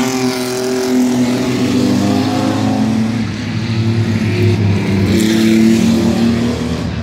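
Racing mini pickup trucks running at speed around an oval track, their engines rising and falling in pitch. One truck passes close by around five to six seconds in.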